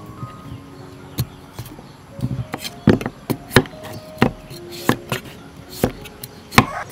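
Steel cleaver slicing through a squash and striking a wooden chopping block, about nine sharp knocks at an uneven pace, over soft background music.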